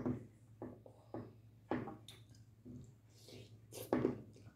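Eating sounds close to the microphone: a wooden spoon scraping and knocking in a glass bowl, with wet mouth noises, heard as a string of short separate clicks and smacks.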